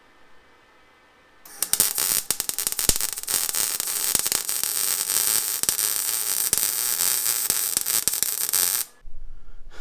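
MIG welder crackling steadily as it welds the steel tailpipe into the muffler outlet. It starts about a second and a half in and cuts off suddenly shortly before the end.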